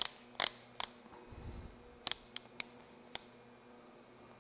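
Socket wrench being handled, giving sharp, irregularly spaced metallic clicks, the loudest in the first second, with a soft low thump about a second and a half in.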